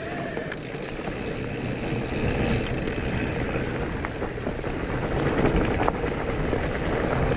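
Mountain bike riding along a rough trail: a steady rumble of tyres and wind noise with occasional sharp knocks and rattles, growing louder after about two seconds.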